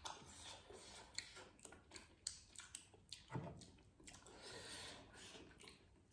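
Faint chewing and mouth clicks of people eating steamed chicken momos, with many small sharp clicks scattered through.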